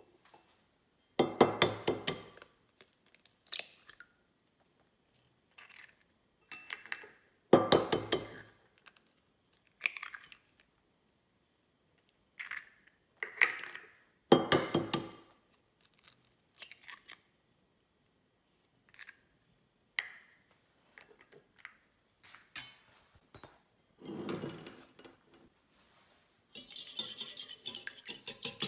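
Three eggs cracked open one after another over a glass mixing bowl, each a quick cluster of sharp taps and shell cracking, with light clicks from the shells being set down in between. Near the end a wire whisk starts beating the eggs in the glass bowl with rapid scraping strokes.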